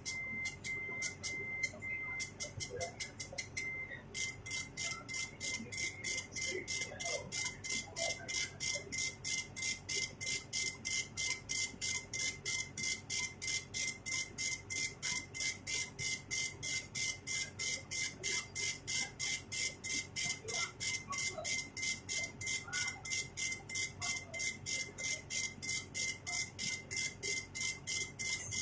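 CNC machine running, giving a steady high-pitched tone with a fast, even pulsing of about two to three beats a second that settles into its regular rhythm a few seconds in.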